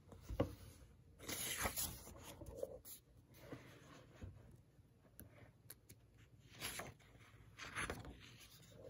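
Pages of a picture book being turned by hand: faint paper rustles and handling sounds, the most distinct about a second in and a few more near the end.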